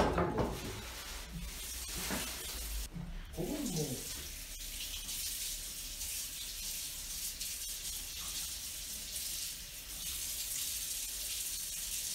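Kitchen tap running into a sink as hands are washed under it, a steady rush of water.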